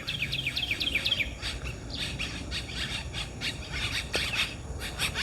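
Wild birds chirping: a busy run of short, quick chirps, each sliding down in pitch, repeating without a break.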